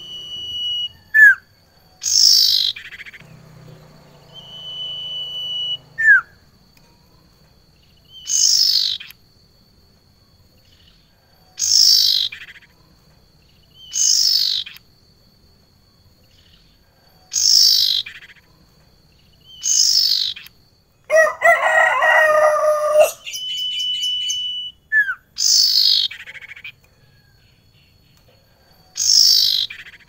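Caged ioras, a female sirtu with a male cipoh, calling: loud down-slurred calls repeat every two to three seconds, mixed with short held whistles and quick upward chirps. A rooster crows about two-thirds of the way through.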